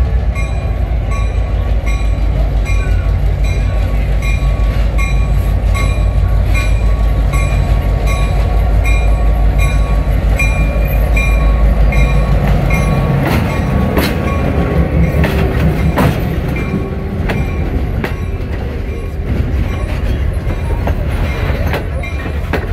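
Diesel switcher locomotive pulling passenger coaches slowly past, its engine rumbling low with a bell ringing about twice a second. The rumble drops away a little past halfway as the locomotive passes, leaving the coaches' wheels clicking over the rail joints.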